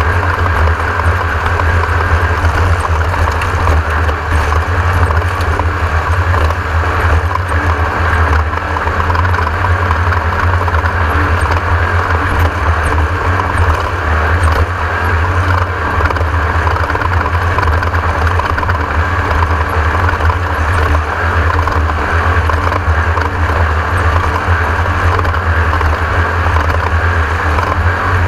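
Class 1600 off-road race car running steadily, its air-cooled VW-based engine giving a loud, unbroken low drone under a dense mechanical and road noise.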